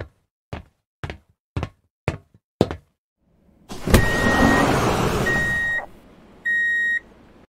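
Sci-fi sliding-door sound effect: six sharp mechanical clicks about half a second apart, then a heavy clunk and a hissing rush as the door parts, with electronic beeps over it. One last short beep follows.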